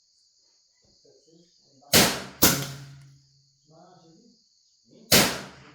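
Three sharp, loud bangs, each with a short ringing tail: two about half a second apart, then a third nearly three seconds later.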